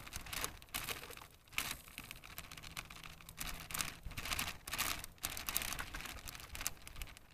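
Clear plastic zip-top bag crinkling and rustling in irregular bursts as asparagus is shaken out of it into a small steamer pot.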